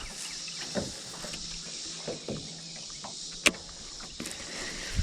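Sounds of a small boat drifting on a fast river: a steady watery hiss with scattered light knocks and taps against the hull, and one sharp click about three and a half seconds in.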